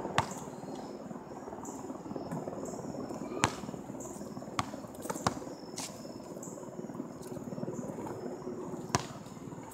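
Basketball hitting an asphalt court and the hoop, about six sharp impacts spaced irregularly, the loudest about three and a half seconds in. Insects chirp steadily in the background.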